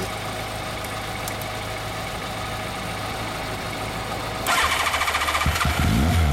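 1987 Yamaha FZR1000's inline-four engine idling steadily. About four and a half seconds in, the throttle is blipped and it revs up sharply and falls back.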